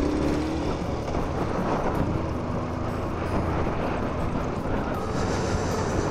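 Motorcycle engine running at a steady pace while riding, with road noise.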